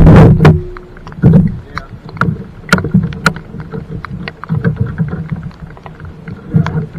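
Rain falling on a kayak and its rider's rain poncho: scattered sharp taps of drops striking close by, over low rumbling that swells and fades. The loudest part is a burst at the very start.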